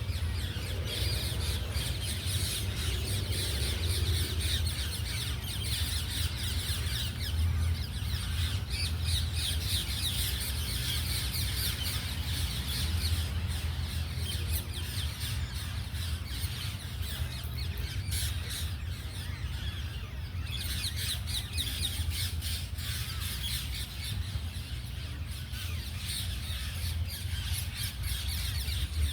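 Many birds squawking and chattering at once in a continuous dense chorus, over a steady low rumble.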